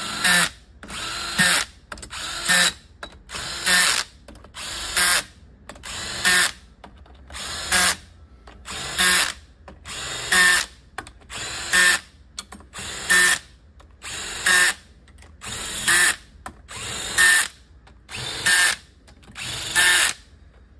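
Cordless drill set to a low clutch setting, driving valve body bolts in short repeated bursts, about one every second and a quarter. Each burst starts quieter and ends louder, as the clutch slips once the bolt is snug.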